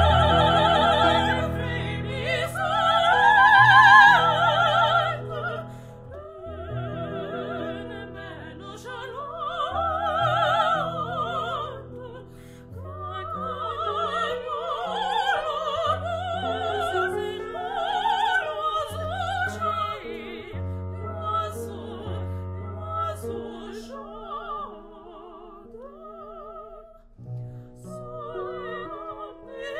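Operatic singing with a wide vibrato, long held notes rising and falling over a sustained low accompaniment. The loudest phrases come in the first five seconds.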